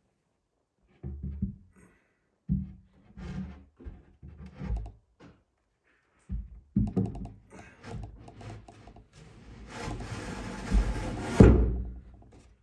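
Plywood cabinet panels being handled and knocked into place: a series of hollow wooden knocks and thunks, closer together in the second half. Near the end comes a steady hiss lasting about a second and a half, cut off by one loud thump.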